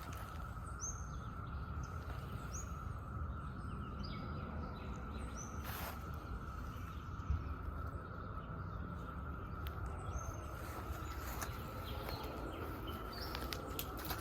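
Brood X periodical cicadas chorusing in one steady, even drone, with a bird chirping several times over it and a low rumble underneath.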